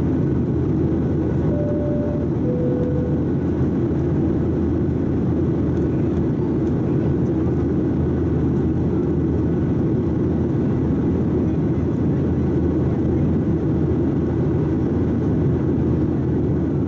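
Steady cabin noise of a Boeing 737-700 in its climb, engines and airflow heard from inside the cabin. About a second and a half in, a two-tone high-low cabin chime ("ding dong") sounds once, signalling that the aircraft has climbed through 10,000 feet.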